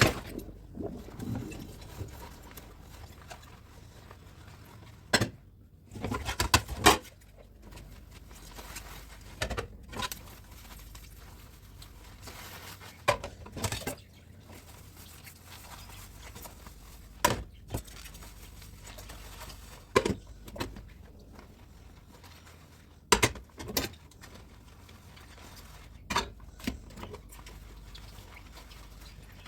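Dishes and utensils being hand-washed in a kitchen sink, clinking and knocking against each other, with a sharp clink every few seconds, sometimes two or three close together, over a low steady background.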